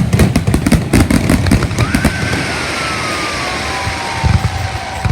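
Fireworks display: a sharp bang at the start, then dense crackling, with a whistling tone that falls slowly in pitch over the last three seconds.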